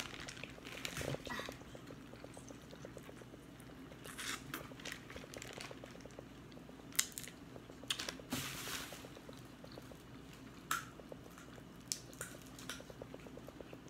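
Eating and food-handling sounds: a plastic seafood-boil bag crinkling as hands pull food from it, with chewing, in short scattered bursts.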